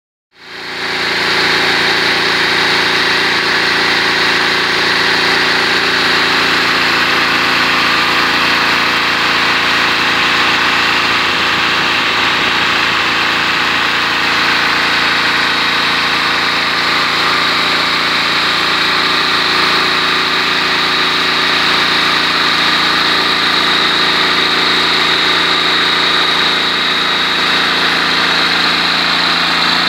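163 cc single-cylinder four-stroke spark-ignition engine of a prototype range extender running steadily at about 3,400 rpm through a motorcycle muffler. It drives a belt-driven alternator that is charging a 48 V electric vehicle's battery.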